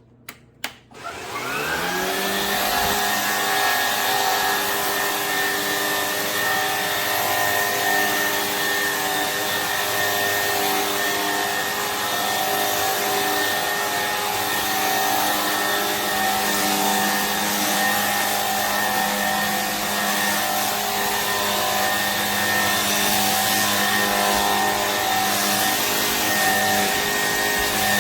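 A vacuum cleaner switched on with a couple of clicks, its motor spinning up over about a second into a steady whine.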